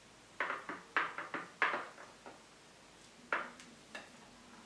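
Tableware being handled at a breakfast table: a quick run of short knocks and clinks in the first two seconds, then a few more about three and a half seconds in.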